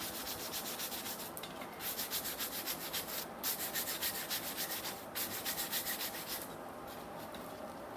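Wire brush scrubbing forge scale off a hot, flat forged steel leaf lying on the anvil face, in fast back-and-forth strokes that ease off near the end. This is the cleaning of the leaf's back side before it is shaped.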